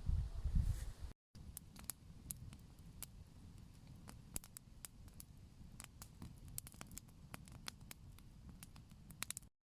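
Faint campfire crackling: many small, irregular sharp pops and ticks. A low rumble opens the stretch and cuts off about a second in.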